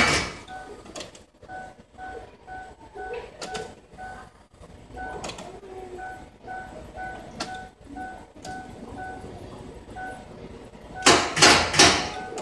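A dashboard warning chime beeps over and over, about three times a second, with short gaps. About eleven seconds in, a quick run of loud clanks follows: the clank the 2002 Ford Explorer's 4.6 L V8 makes every time the key is turned, instead of starting.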